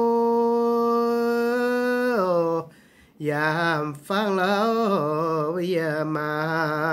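A single voice singing unaccompanied: a long held note that rises a little and then slides down about two seconds in, a short pause, then sung phrases with strong vibrato.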